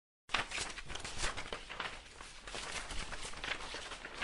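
Paper pages rustling and flipping as a book is opened, a dense crackly rustle full of small irregular snaps.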